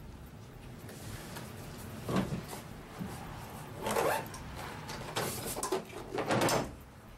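Long guns being slid into gun cases mounted inside a pickup truck-bed gun locker: four short rubbing, knocking handling noises spread over a few seconds.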